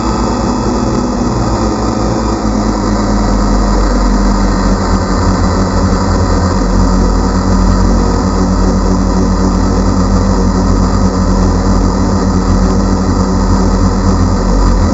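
DJI Phantom quadcopter's motors and propellers buzzing steadily in flight, picked up close by the GoPro mounted on the drone.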